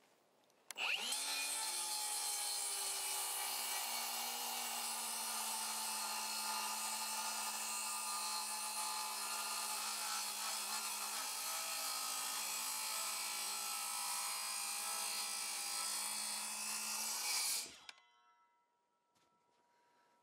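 Handheld circular saw spinning up and cutting steadily through a timber board for about sixteen seconds, then winding down to a stop. The blade is blunt and smokes the wood, and the user thinks it needs a new blade after hitting too many nails.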